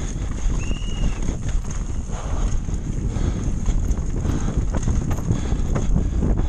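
Mountain bike descending a rocky dirt trail at race speed: knobby tyres crunching over loose stones and the bike rattling and clattering over the bumps, with a short squeak about a second in.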